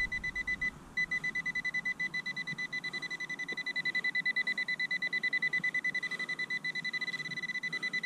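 Metal detector beeping continuously in rapid, even pulses of one high tone, signalling metal close to the coil; it breaks off briefly about a second in, then carries on.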